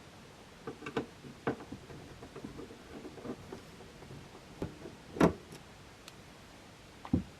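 Screws being undone from the underside of a Roland Fantom XR's case with a screwdriver: scattered light clicks and ticks, with a sharper click about five seconds in and another near the end.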